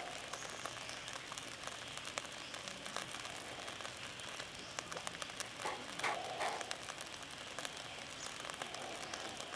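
Skewered chicken wing sizzling over charcoal embers: a steady crackle of many small, quick pops from the fat and marinade cooking.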